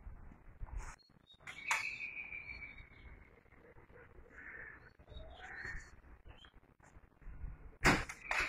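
Faint bird calls, a few short chirps and one drawn-out whistled note, over quiet outdoor background. A burst of louder, sharp sounds comes near the end.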